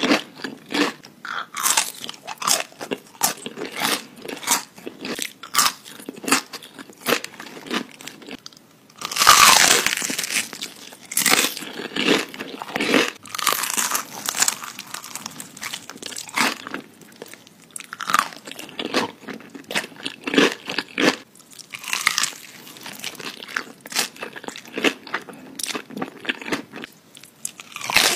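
Close-miked eating of crispy fried chicken: bites crunching through the battered crust and chewing crunches in quick succession, the loudest and longest crunch about nine seconds in.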